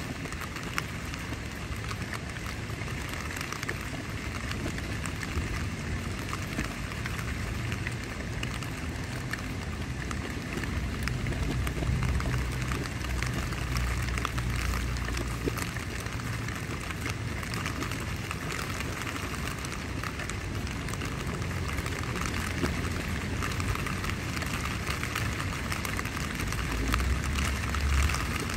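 Steady rain falling on a tent's fabric: a constant hiss of many separate drop hits. A low wind rumble swells around the middle and again briefly near the end.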